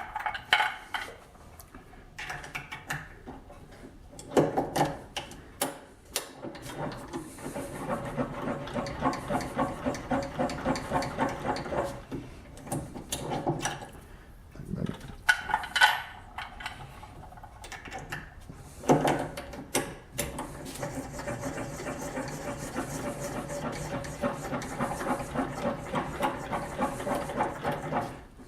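Small electric case-prep motor running in two long spells with fast, even chatter as .223 Remington brass cases are trimmed to length, with sharp clinks of brass being handled between spells.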